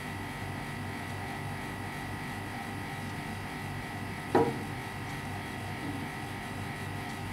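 An egg frying in a nonstick pan on a gas burner: a steady low sizzle over a faint hum. One sharp knock comes a little over four seconds in as the pan is shifted on the burner grate.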